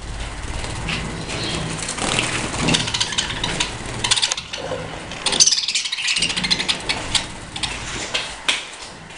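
A flock of budgies chattering and chirping continuously, over a steady low hum.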